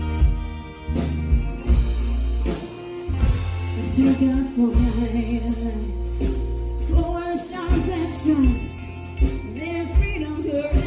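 Live country band playing through a PA: drum kit, bass, acoustic and electric guitars and fiddle, with a sung melody coming in about four seconds in.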